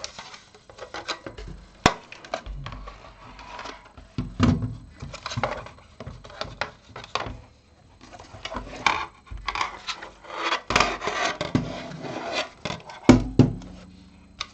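Handling noise from a DAB radio's loose DC power jack and circuit board being wiggled by hand: irregular rubbing, scraping and sharp clicks, with a few louder knocks. The jack is being worked to find an intermittent power fault that makes the radio click off and on.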